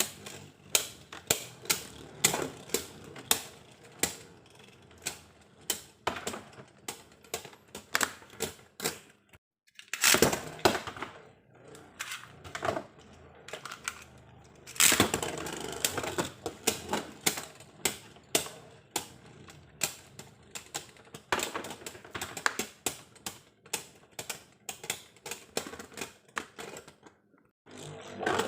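Hard plastic Beyblade Burst parts clicking and clacking: an irregular run of sharp clicks, several a second, with a few denser clusters.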